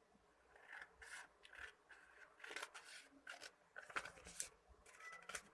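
Scissors cutting through a sheet of paper: a faint, irregular run of short snips.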